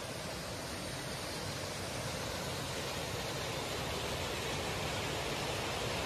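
Small mountain stream cascading over rocks: a steady rush of water that grows slightly louder.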